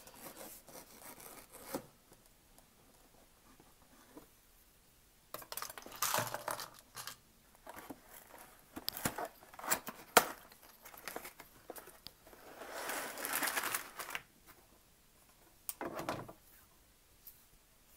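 Cardboard box of a LEGO Technic set being torn open and emptied: several separate bursts of tearing and rustling with a few sharp clicks, and plastic bags of parts crinkling as they are handled, the longest burst a little before the end.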